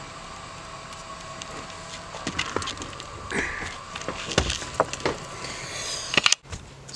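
Irregular clicks, snaps and knocks as LED-strip wiring and connectors are handled and the camera is moved about inside a car, over a faint steady hum. The sound cuts off abruptly near the end.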